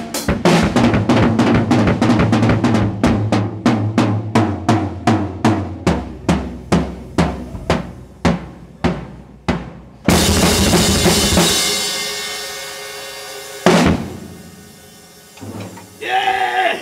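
Acoustic drum kit played in a fast solo: rapid bass drum and snare strokes, the bass drum dropping out about six seconds in while the hits thin to evenly spaced single strokes. About ten seconds in a crash of cymbals and drums rings out and dies away, with one more hit a few seconds later.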